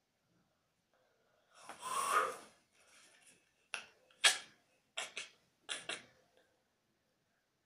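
Close breath noises from a person: one longer hissing exhale about two seconds in, then six short sharp puffs or sniffs, the last four in two quick pairs.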